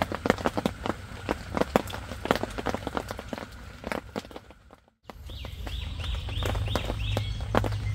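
Raindrops tapping irregularly on tent fabric, fading out a little past halfway. After a brief silence, scattered drips go on over a low steady hum, and a bird gives a quick run of about six short high chirps.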